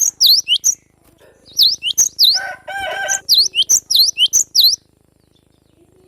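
Cinereous tit (gelatik batu) singing fast runs of sharp, sweeping whistled notes, a brief pause between runs and a short buzzy call in the middle; the song stops about a second before the end.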